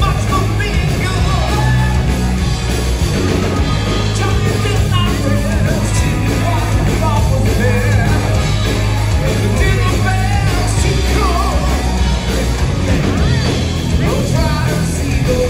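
Hard rock band playing live: a male lead singer over electric guitars, bass and drums.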